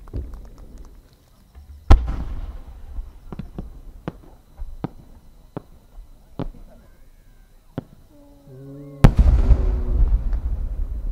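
A 10-inch (shakudama) aerial firework shell. There is a sharp launch boom about two seconds in, then scattered small pops and crackles as it climbs. Near the end comes the loud burst boom with a long rolling rumble.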